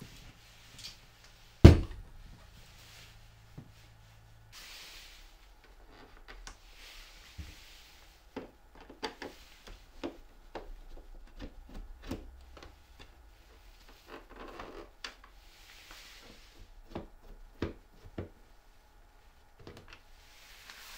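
Handling noises: one sharp knock about two seconds in, then scattered clicks, light knocks and rubbing.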